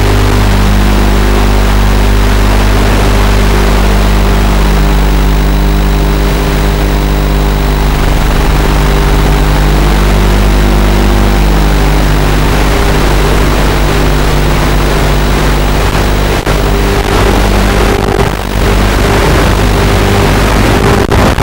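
Quadcopter's electric motors and propellers running, heard loud through its onboard camera. The pitch of the motor hum steps up and down as the throttle changes, with a few brief dips in the last few seconds.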